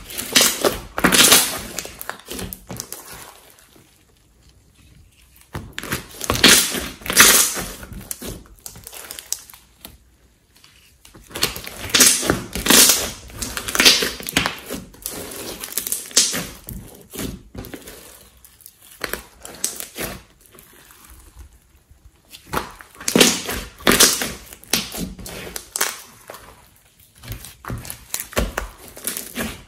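Hands stretching, folding and pressing a large soft glitter slime: sticky squishing with clusters of small crackles, coming in bursts a few seconds long with short pauses between.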